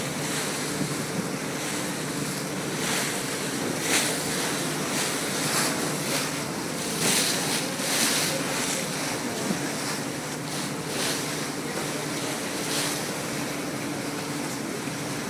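Vaporetto engine running steadily underway, with water rushing along the hull and wind on the microphone. A few times the rush of water and wind swells louder for a moment.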